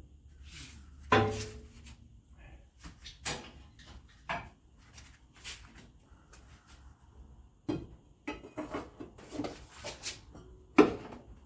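Metal tools knocking and clanking against car suspension parts: a string of sharp, irregular knocks, one about a second in ringing briefly, with a quicker cluster in the second half and a loud knock near the end.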